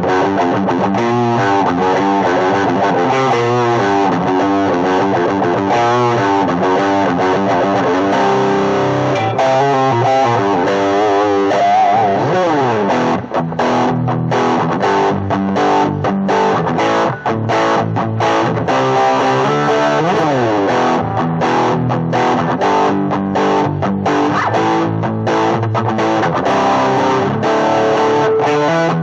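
Better LP-10 Les Paul-style electric guitar played through an amplifier with some distortion: quick single-note runs, a sliding note about twelve seconds in, then choppier stop-start phrases through the second half.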